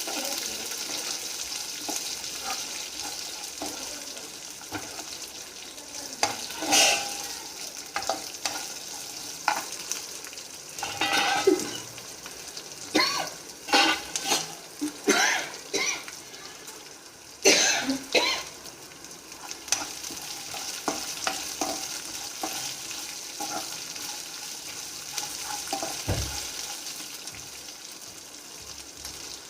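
Chopped onions sizzling in hot oil in a pan, with a spatula scraping and stirring them in a run of short strokes through the middle. The onions are being fried only until they turn lightly transparent.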